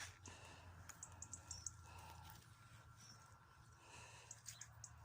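Near silence with faint, brief high-pitched bird chirps now and then, over a low steady rumble.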